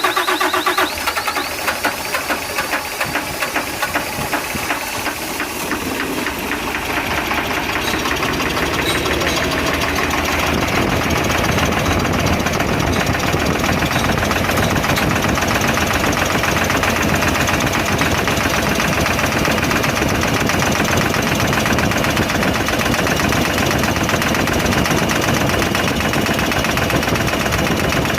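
Nissan Quester CWA 280 truck's diesel engine running with a fast, rhythmic knocking clatter. It grows louder over the first ten seconds or so, then holds steady. A brief steady whine is heard in the first second.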